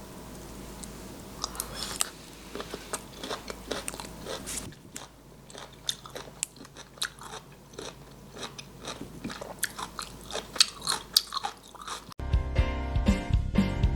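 Crisp crunching bites and chewing of stir-fried chonggak (young radish) kimchi, with many sharp crunches in quick succession. Background music starts near the end.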